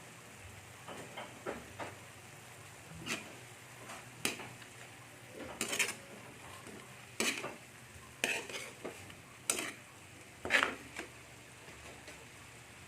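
A utensil stirring squid in a frying pan, scraping and knocking against the pan in about a dozen short, irregular strokes, over a faint steady sizzle.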